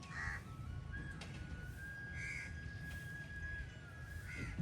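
Birds calling: three short calls about two seconds apart, with a thin steady whistle-like tone between them, over a low rumble of wind.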